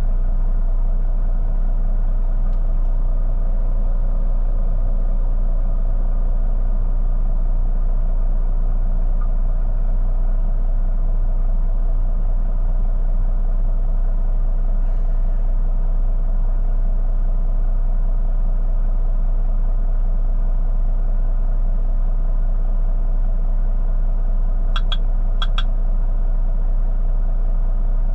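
Semi truck's diesel engine idling steadily, heard from inside the cab as a constant low drone. Near the end come two short high chirps, about half a second apart.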